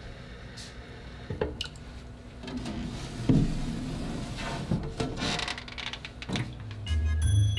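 A thin stream of tap water trickling into a plastic container in a stainless sink, with a few knocks and rattles as the container is handled and lifted out. Music comes in near the end.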